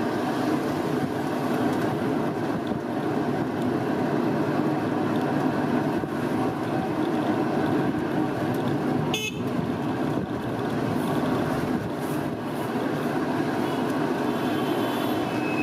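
Steady road and engine noise from a moving vehicle driving through town traffic, with a short horn toot about nine seconds in and another high horn tone near the end.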